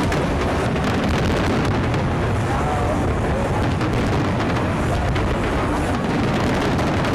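Fireworks finale barrage: aerial shells bursting and crackling in rapid succession, the booms running together into one continuous loud rumble with no gaps.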